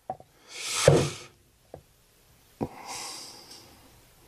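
A few light clicks and knocks of hydraulic pump parts being handled over a plastic drain pan, with two short breathy hisses, the first about a second in and the second from a little past halfway.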